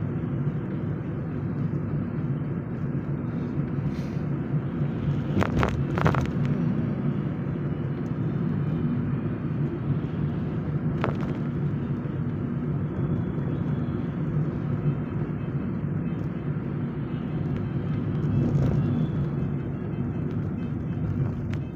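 Car interior while driving: a steady engine and road rumble, with a few brief sharp clicks, two close together about five to six seconds in and one near eleven seconds.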